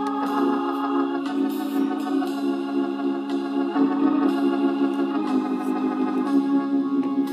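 Slow organ music: held chords that change every second or so.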